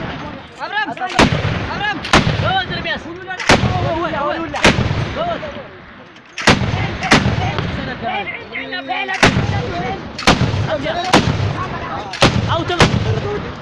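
A tripod-mounted machine gun firing single shots, about eleven of them, spaced roughly a second apart, each with a rolling echo. Men's voices call out between the shots.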